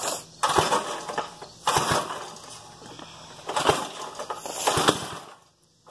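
Recoil starter rope pulled four times on a rebuilt 5 hp Briggs & Stratton flathead engine with a shaved head and a 30-over bore, cranking it against high compression without it catching.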